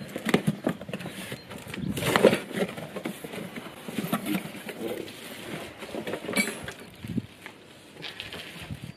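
Portable barbecue parts and cardboard packaging being handled during assembly: irregular rustling of cardboard with scattered clicks and knocks of metal parts, a sharper knock about six seconds in.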